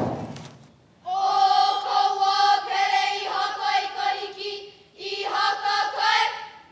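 A sharp knock at the very start, then a group of voices chanting a Hawaiian oli in unison on long held notes, in two phrases with a short breath between them, answering a leader's call.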